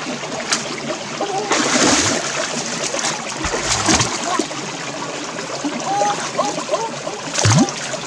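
Hands splashing and thrashing in a shallow stream while grabbing at a large eel, over steady running water. The loudest splashes come about two seconds in, again around four seconds, and near the end.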